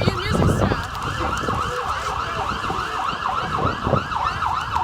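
Siren rapidly rising and falling, about three sweeps a second, in a quick yelping warble that starts and stops abruptly; it is sounding in response to a tripped fire alarm.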